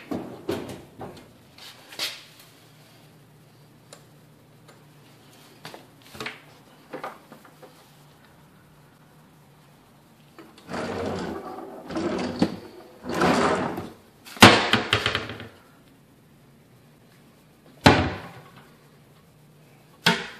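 Wooden kitchen drawer being pulled open and pushed shut: several seconds of sliding and rattling about halfway through, with one sharp knock in the middle of it. Single knocks of a wooden cabinet door come near the end, and a few scattered clicks and knocks of handling come earlier.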